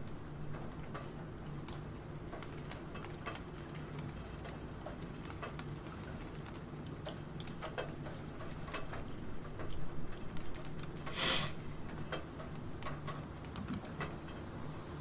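Computer keyboard being typed on: irregular, scattered key clicks over a steady background of rain. A brief, louder noise cuts in about eleven seconds in.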